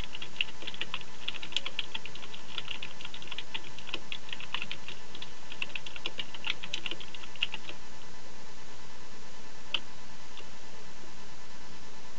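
Typing on a computer keyboard: a fast, uneven run of key clicks for about seven seconds, then two single clicks a few seconds later.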